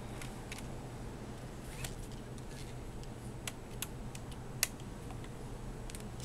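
Scattered light clicks and taps of small screws and laptop parts being handled during reassembly, the sharpest click a little past halfway, over a steady low hum.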